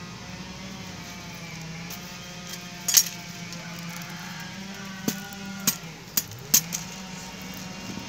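Wire-mesh cage traps and steel forceps clinking as they are handled: one sharp clink about three seconds in, then several lighter clinks a little later, over a steady low hum.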